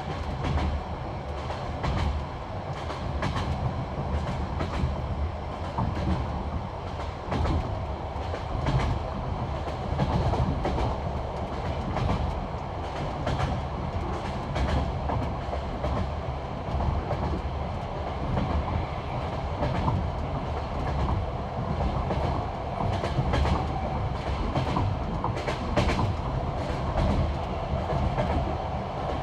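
Passenger train running on jointed track: a steady rumble of wheels on rail with repeated clickety-clack knocks as the wheelsets cross the rail joints, heard from inside the carriage.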